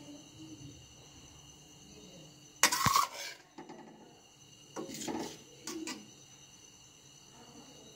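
A spoon knocks sharply against a metal cooking pot about three seconds in, then scrapes and taps more softly as rice is spread over the eggs, around five and six seconds in.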